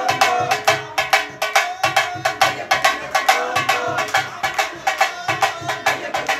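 Music with a quick, steady beat of sharp percussion strokes, about four a second, and a melody line over it.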